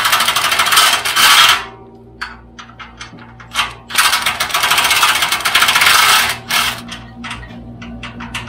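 Cordless impact driver hammering on an exhaust bolt through a swivel and extension. It runs in two long bursts, the first around the start and the second from about four to six seconds in, with short blips between.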